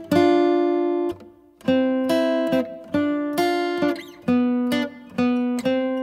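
Background music: acoustic guitar playing a slow run of plucked notes, each left to ring and fade.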